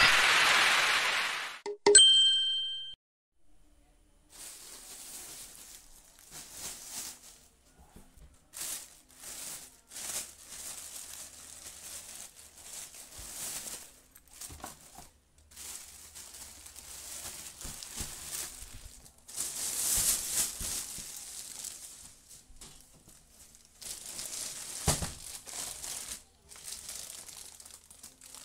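An intro sound effect: a loud whoosh, then a sharp bell-like ding ringing for about a second. After that, plastic crinkling and rustling in irregular bursts as a black plastic bag and the clear plastic wrapping around a pair of boots are handled.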